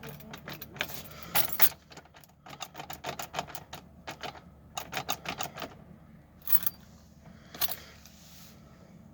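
Small plastic and metal parts being handled at the under-hood fuse and relay box: rapid clicking and rattling in several bursts, then a couple of single clicks.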